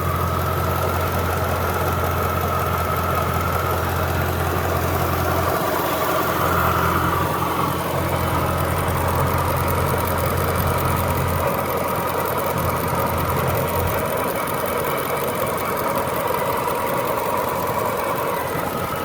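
Jaguar S-type R's supercharged 4.2-litre V8 idling, with a steady whine over the engine hum and a funny tapping noise, which the owner associates with the supercharger and its bearings.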